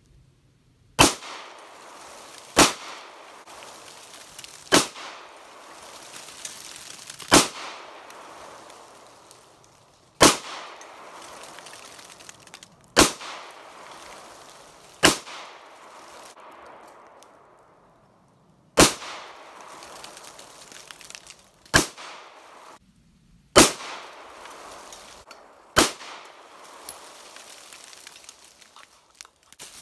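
Glock 19 9 mm pistol fired eleven single shots at an unhurried pace, one every two to three seconds. Each sharp report is followed by an echo that fades over a second or two.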